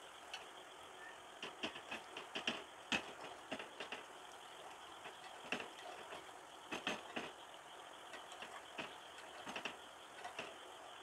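Sweet appam frying in oil in a multi-cup appam pan, a faint sizzle under irregular light clicks and taps as each appam is turned over in its cup.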